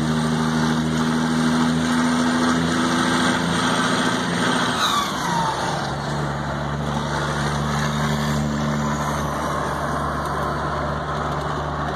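Caterpillar 3406E diesel, tuned to 650 hp, running hard in a truck, heard from inside the cab. About five seconds in the engine note drops with a falling whistle, then settles into a steady pull again.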